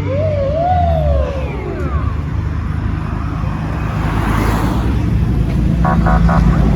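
Police car siren worked by hand in manual mode: one swoop that rises, wavers and falls away over the first two seconds, over the steady sound of the vehicle's engine and traffic. Near the end comes a short run of rapid stuttering tones.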